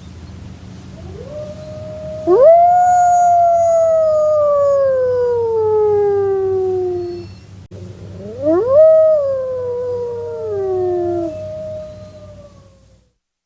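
Wolves howling: two long howls, each swooping up sharply and then sliding slowly down in pitch, each overlapped by a second, steadier howl from another wolf, over a faint low hum.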